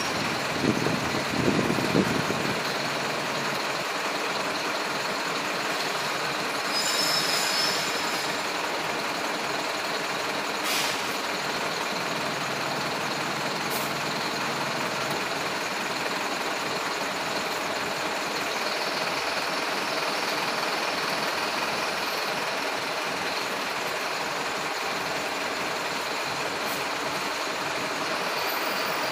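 Steady road-traffic noise of a stop-and-go jam with engines idling and creeping. A motorcycle passes close by in the first couple of seconds, and there is a short hiss about seven seconds in.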